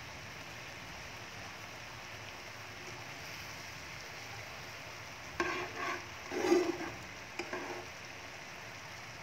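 Chicken drumsticks simmering in a thick spicy sauce in a frying pan, with a steady bubbling sizzle. From about five and a half seconds in, a few louder scrapes and knocks as metal tongs turn the drumsticks in the pan, the loudest a little later.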